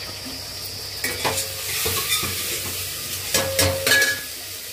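A metal spoon stirring and scraping in a cooking pan while chilli-laden masala sizzles in it. There are two bursts of clanking, about a second in and again past three seconds, with the pan ringing briefly after the knocks.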